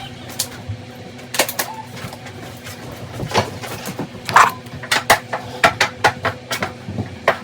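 Hard objects clattering as they are picked up and dropped while a cluttered room is tidied: scattered knocks and clicks that come thick and fast in the second half.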